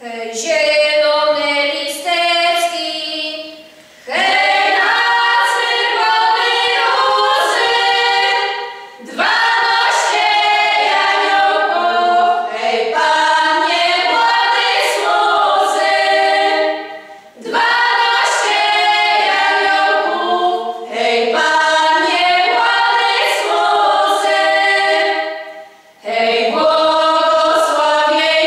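Women's folk singing group singing a cappella, starting out of silence with a short first phrase and going on in longer phrases with brief breaks for breath between them.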